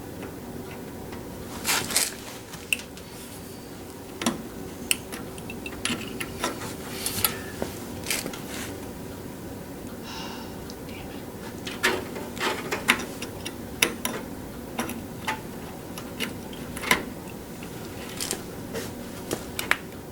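Irregular light clicks, taps and clatter of small hard parts and tools being handled, over a faint steady hum.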